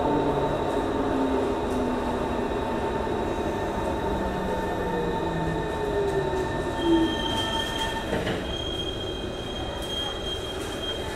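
Running noise inside a Singapore MRT train car, with steady high tones and a motor whine that falls in pitch as the train slows, and a brief louder squeal about seven seconds in.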